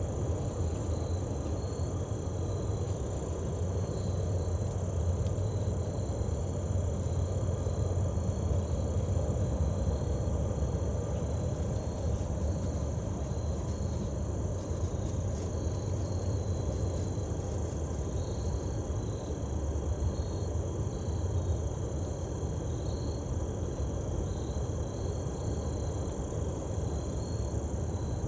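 Crickets chirping in a steady pulsing trill over the continuous low rumble of a passing train.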